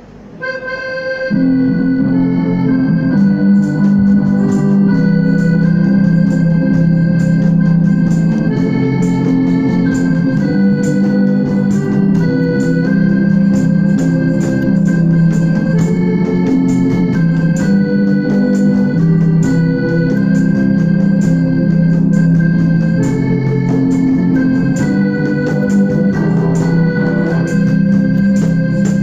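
Live stage music: sustained organ-like keyboard chords under a melody of held notes, with a steady beat, starting about a second in.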